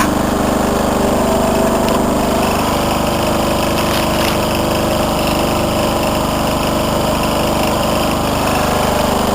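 Riding lawn mower's small single-cylinder engine running steadily at a constant speed, with no revving.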